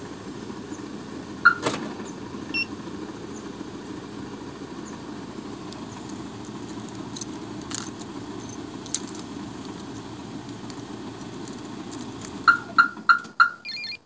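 Keys jingling on a ring with a Tomahawk TW9010 two-way car alarm remote, over the steady low sound of a car engine idling. One short beep comes about a second and a half in, then four quick beeps from the alarm near the end.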